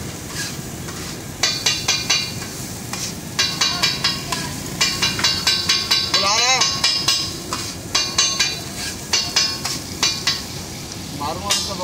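Metal spatula rapidly chopping and scraping on a flat steel griddle (tawa), clattering in quick bursts of ringing strikes as it mashes egg and shami kabab ghotala. A low sizzle of frying runs underneath.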